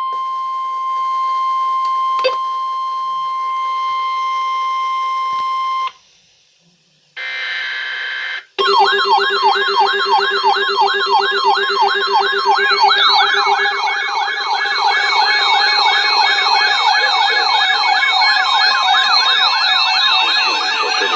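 Emergency alert broadcast tones: a steady 1050 Hz alert tone for about six seconds, then a short pause and a brief noisy burst, then a loud wailing, siren-like alarm of several tones sweeping up and down about twice a second.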